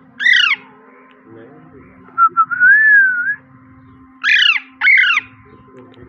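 Alexandrine parakeet giving one loud falling squawk, then two more in quick succession near the end. In between there is a long whistled note that rises and falls.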